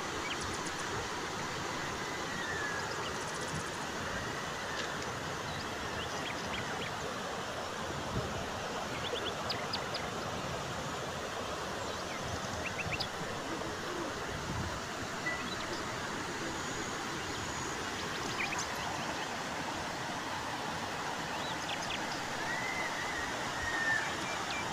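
Muddy floodwater from heavy rain rushing down a hillside channel: a steady rushing noise, with a few faint high chirps now and then.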